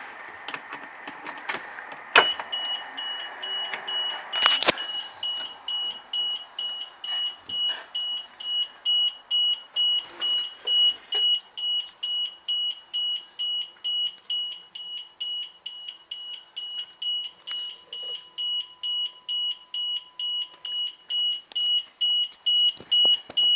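Bus dashboard warning buzzer beeping in a high, even pulse at about two beeps a second, starting about two seconds in after a sharp click. A second loud click comes a couple of seconds later.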